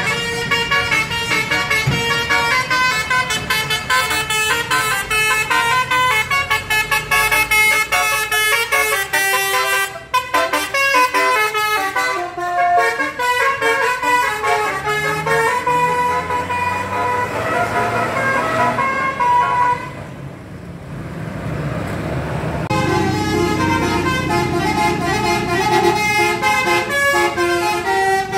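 Basuri telolet musical horn playing a fast melody of changing notes over a vehicle engine, which revs up beneath it. About two-thirds of the way through the horn breaks off for a couple of seconds, leaving engine noise, then starts playing again.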